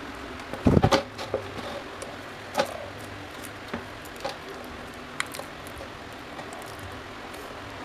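Scattered clicks and knocks of parts being handled, with a loud cluster about a second in and another sharp knock a little later, over a steady low hum.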